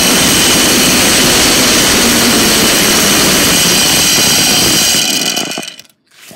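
Zip line trolley running down a steel cable: a loud, steady rushing whir that fades out about five seconds in as the ride comes to a stop.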